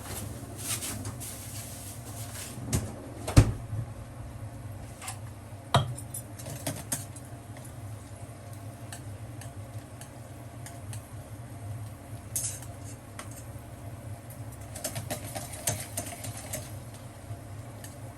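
Cookware and utensils being handled: scattered clinks and knocks, the loudest about three and a half seconds in, with clusters of light clicks later, over a steady low hum.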